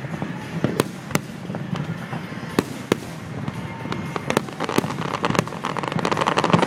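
Fireworks going off: separate sharp bangs and reports, building in the last couple of seconds into a rapid crackling volley of many bursts.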